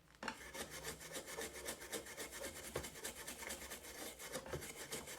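Brush scrubbing back and forth over a circuit board's freshly soldered joints, cleaning off the flux with thinner, in quick repeated strokes.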